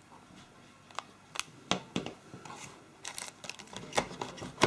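Phone accessories and packaging being handled: scattered light clicks and brief plastic-and-cardboard rustles, busier in the second half, with a sharper knock near the end.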